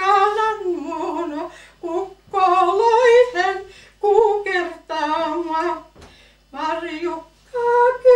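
An elderly woman sings a Karelian runo song solo, without accompaniment. She sings in short chanted phrases with a wavering pitch and brief pauses for breath.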